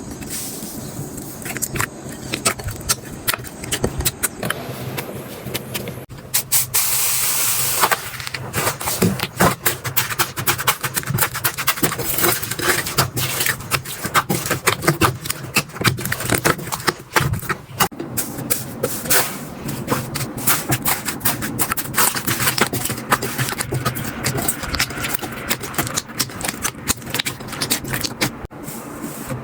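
Hands squishing and poking slime: a dense run of small sticky clicks, crackles and air-bubble pops, with a short hissing stretch about seven seconds in.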